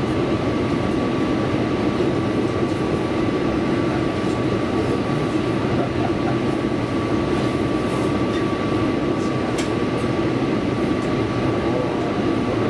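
Tobu Railway electric train running, heard from inside the passenger car: a steady rumble of wheels and running gear with a steady high whine above it.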